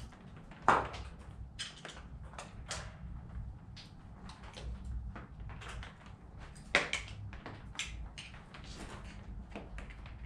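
Scattered clanks and knocks of hand tools and metal parts being handled during an engine teardown, with two louder knocks, one under a second in and one about seven seconds in.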